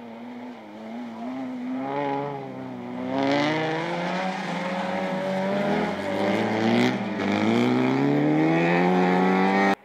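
Folkrace car's engine revving hard through a corner on a loose dirt-and-snow track, its pitch climbing and dipping with the throttle, then held at high revs as it accelerates away. The sound cuts off suddenly near the end.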